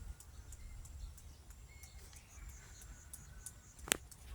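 Outdoor bird ambience: a few faint, short bird chirps over a low rumble, with one sharp click about four seconds in.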